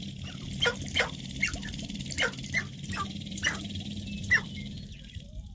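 Male sharp-tailed grouse calling on their lek in a rapid, irregular series of short, sharp calls, about two a second, which stop near the end. A steady low background noise runs underneath.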